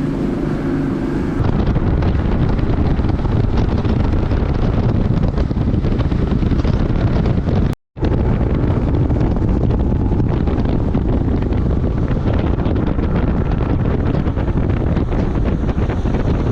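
A motorboat running fast across the water, with heavy wind buffeting the microphone and drowning out the engine. A steady engine hum is heard only for about the first second, before the wind noise takes over. The sound cuts out completely for an instant about 8 seconds in.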